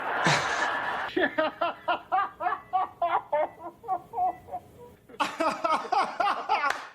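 A person laughing hard in quick repeated bursts, with a pause of about half a second about five seconds in before the laughing resumes. It opens with a short, loud, breathy rush of noise.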